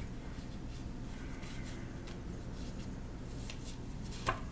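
Tarot cards being handled: a few faint taps and rustles, with one sharper tap near the end, over a low steady hum.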